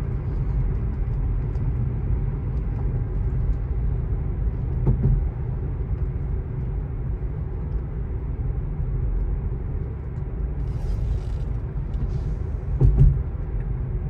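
Steady low road and tyre rumble inside the cabin of a 2024 Tesla Model 3 electric car on the move, with two short thumps, one about five seconds in and one near the end.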